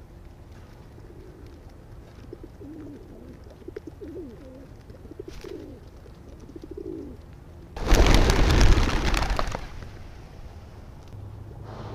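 Feral pigeons cooing softly at close range. About eight seconds in comes a loud clatter of wings lasting about two seconds as the flock flushes and takes off.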